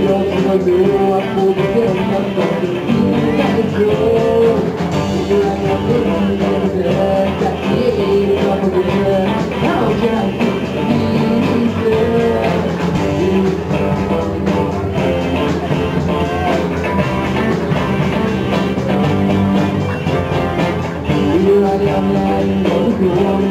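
Amateur rock band playing live: electric guitars with a male singer.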